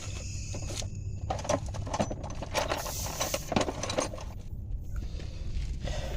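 Hand tools and metal parts clicking and clinking in a run of short, irregular knocks while a steering tie rod end is fitted, over a steady low hum.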